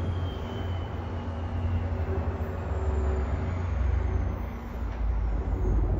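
NJ Transit Atlantic City Line train departing: a steady low rumble with a faint whine slowly falling in pitch.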